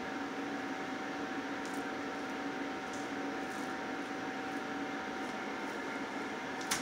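Hands squeezing and shaping raw ground chicken into burger patties, with soft, faint squishing, over a steady hum. A sharp click comes near the end.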